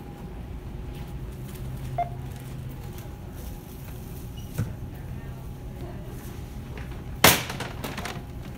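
Steady background hum of a large store with a short beep about two seconds in and a few faint clicks, then one loud sharp bang about seven seconds in.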